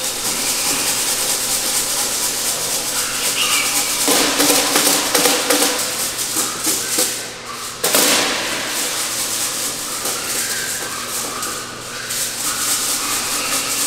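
A crowd of weaner piglets' hooves scuffling and clattering on a slatted barn floor as they are driven down the alley, with a few short squeals. The scuffling gets suddenly louder about eight seconds in.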